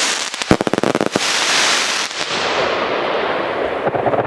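Fireworks going off: a quick run of sharp crackling pops about half a second in, then a dense crackling hiss whose high end fades away.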